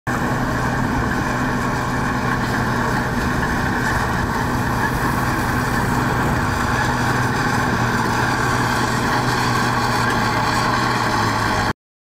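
Diesel engine of heavy earthmoving machinery running steadily at a constant speed, the sound cutting off abruptly near the end.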